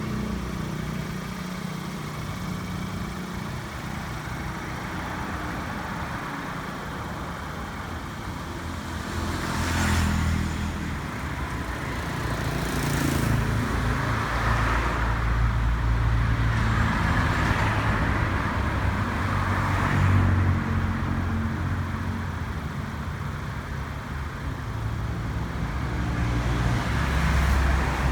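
Motor vehicle running with road noise: a steady low rumble and hiss that swell several times and grow louder about halfway through.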